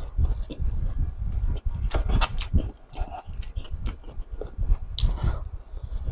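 Close-up chewing of a mouthful of spicy pork sisig, with a run of sharp crunchy crackles; the sharpest crunches come about two and five seconds in.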